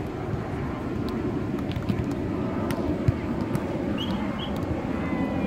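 Steady rush of wind and surf on an open beach, with a few soft knocks and a couple of short high chirps about four seconds in.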